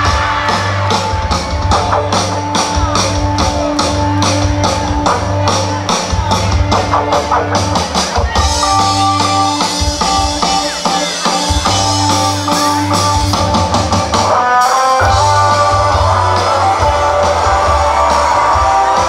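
Live rock band playing through a stage PA: drum kit and electric guitars, with a steady beat and then held chords from about halfway through.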